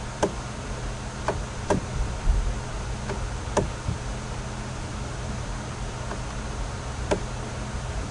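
Sharp, irregularly spaced clicks of a computer mouse, about six in all, over a steady low electrical hum and hiss.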